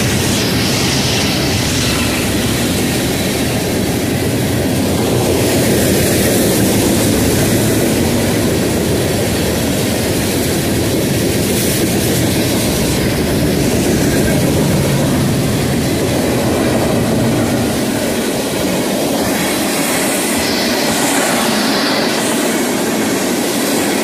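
Freight train of covered hopper cars rolling past at close range: a loud, steady rumble of steel wheels on the rails.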